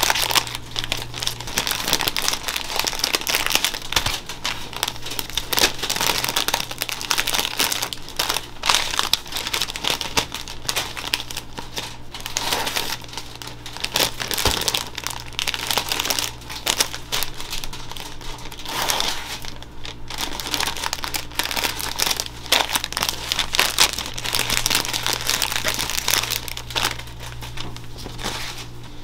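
Clear plastic bags crinkling and crackling as bagels are slipped into them and the bags are handled, with an irregular, unbroken rustle.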